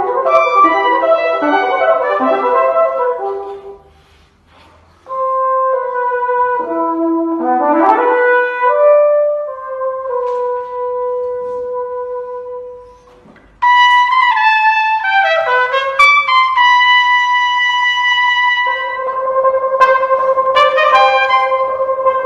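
Flugelhorn and trumpet playing a concerto passage together. It opens with a busy run of notes and breaks off briefly about four seconds in. It then moves through long held notes, sliding glides and fast falling runs, with a second short break past the middle.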